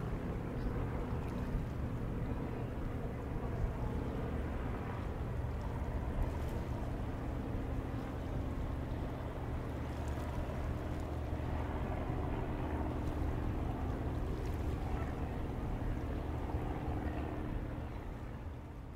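A boat's engine running steadily across the water, giving a low, even drone with a few held tones.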